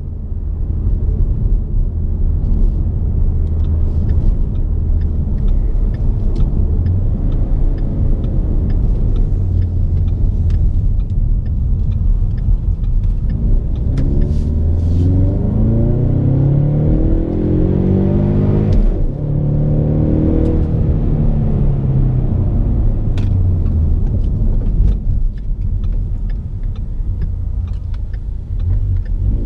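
2015 Ford Mustang's 2.3-litre EcoBoost turbocharged four-cylinder engine running while the car is driven. About halfway through the engine pulls with its pitch rising for several seconds, breaks off suddenly, then rises and falls again before settling back to steady running.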